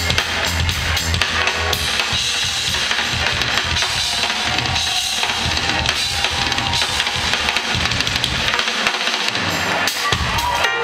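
Live band playing with the drum kit to the fore: a busy stretch of kick drum, snare and rimshot hits. The bass drops out for a moment about nine seconds in.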